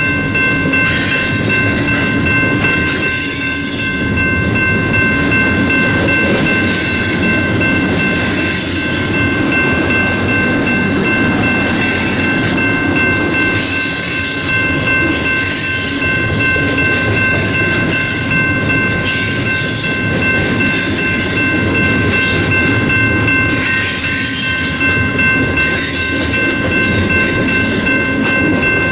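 Freight train of covered hopper cars passing a grade crossing close by: steady rolling noise of the cars' wheels on the rails, with irregular clacks over the joints and a steady high-pitched whine over it.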